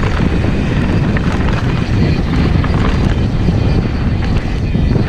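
Heavy, steady wind buffeting on the action camera's microphone as a mountain bike rolls fast down a dirt trail. Small ticks of the bike rattling and the tyres running over loose dirt are scattered through it.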